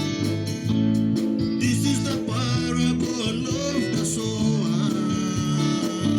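Gospel band music with guitar and a steady bass line, and a voice singing over it for a couple of seconds in the middle.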